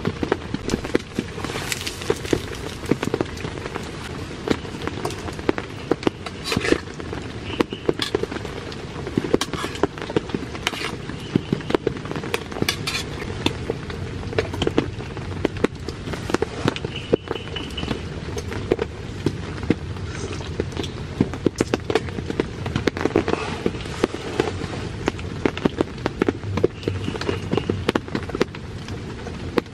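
Rain falling on a tent, a steady hiss dense with sharp, irregular drop hits.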